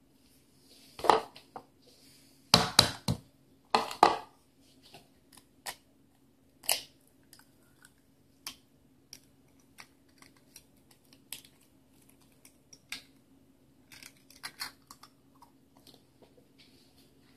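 An egg tapped against a bowl and its shell slowly broken apart by hand. A few sharp knocks come in the first four seconds, then scattered faint cracks and ticks, over a low steady hum.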